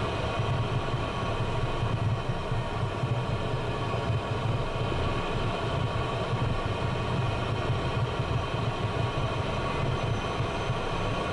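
Steady low rumble and whine of a Cessna Citation jet's turbofan engines at taxi power as the jet rolls along the taxiway, with several steady high tones over the rumble.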